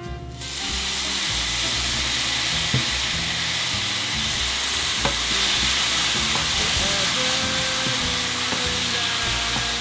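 Food sizzling steadily in a hot frying pan, starting about half a second in, with a few light clicks of stirring. Soft background music underneath.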